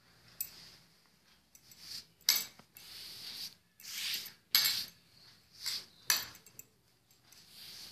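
Hands folding and smoothing cotton fabric flat: a series of short brushing, rustling swishes of cloth.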